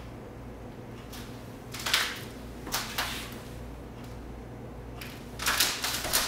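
Steady low hum of room tone with a few soft scuffs, then a quick run of shuffling footsteps starting a little past five seconds in.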